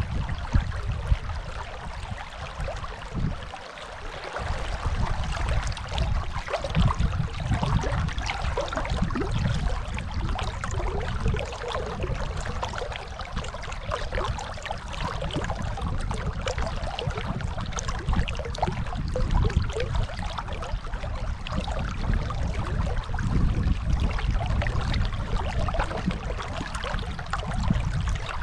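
Dunajec river water rushing: a steady, even rush of flowing water with a deep rumble underneath that swells and fades.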